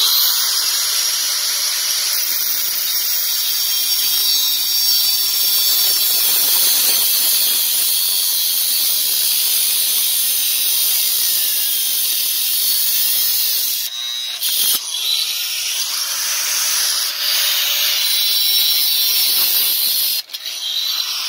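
Corded angle grinder with a cut-off disc cutting into the metal housing of a car's fuel pressure regulator: a steady, loud, high-pitched grinding. It eases off briefly about 14 seconds in and again near the end.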